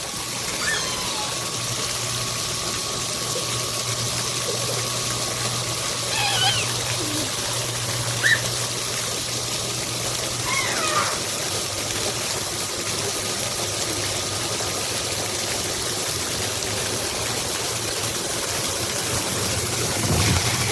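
Submersible utility pump running, water flowing steadily with a low motor hum under it, and a few faint high chirps here and there.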